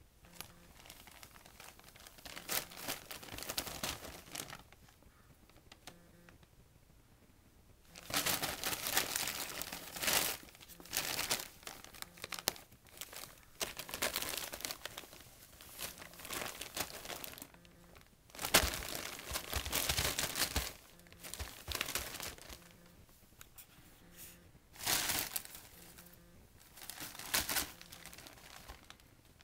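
Christmas wrapping paper crinkling in irregular bursts as a kitten pounces on it and burrows underneath. Quieter rustles come between the bursts, and the loudest bursts fall about a third of the way in and again about two-thirds through.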